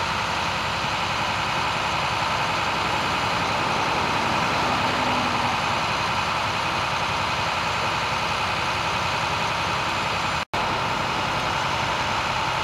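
Steady drone of idling vehicle engines, heavy like a truck's, with the sound cutting out for an instant about ten and a half seconds in.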